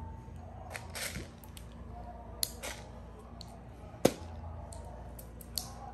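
Airsoft pistol magazine being loaded with BBs by hand, one pellet at a time: irregular sharp clicks and small rattles, the loudest about four seconds in.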